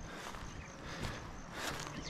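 Footsteps of a hiker walking along a forest trail, with insects chirping in short repeated pulses in the background.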